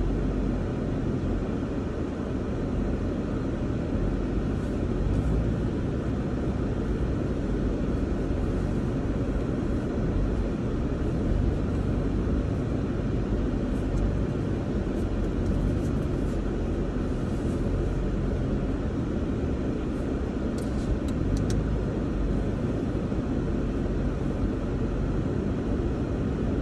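Steady low rumble inside a vehicle's cab driving on a dusty dirt trail: engine and tyres on dirt and gravel, with a few faint ticks partway through and again later.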